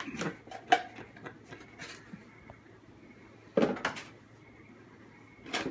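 Cardboard parts boxes being handled, set down and shuffled on a table: a few sharp knocks and scrapes, with a cluster of louder knocks about three and a half seconds in.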